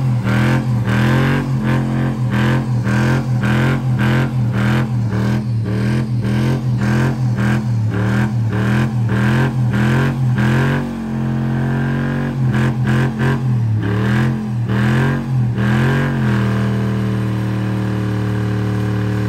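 Chevrolet Silverado pickup's engine bouncing off the rev limiter during a chained-down burnout, the revs cutting and recovering about twice a second while the rear tire spins. Near the end the engine settles to a steady high rev.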